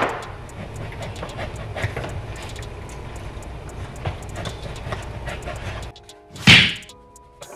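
A knife cutting a loaf of garlic bread into sections: irregular scraping and knocking over a steady low rumble of kitchen noise, with background music. About six seconds in the kitchen sound cuts off, a loud whoosh sweeps past, and the music carries on.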